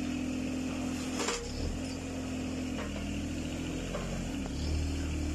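Mini excavator engine running steadily, its pitch shifting slightly a couple of times. A sharp clank comes about a second in, with a few lighter knocks later, as the bucket works through burnt rubble.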